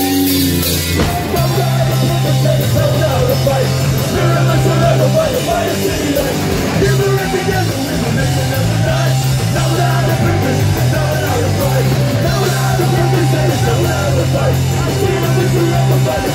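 Punk rock band playing live: distorted electric guitars, a driving bass line and drums, with singing into the microphones.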